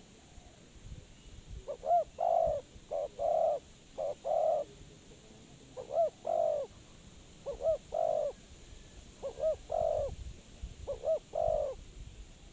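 Spotted dove cooing: repeated phrases of a short double note followed by a longer, drawn-out coo, about six phrases in a row starting a couple of seconds in.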